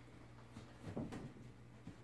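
Soft thumps and scuffs of a black boot being dragged and bumped along a hard floor by a cat, a cluster of them about a second in and another just before the end, over a faint steady hum.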